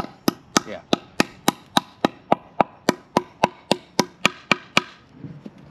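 A hand tool tapping sharply and evenly against the edge of a freshly cast fibreglass-epoxy plug, about three and a half knocks a second, chipping and cleaning up the edge. The knocking stops about five seconds in.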